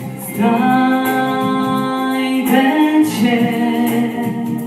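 A man singing a song, holding long notes: one sustained note from about half a second in until past two seconds, then further held notes, over instrumental accompaniment.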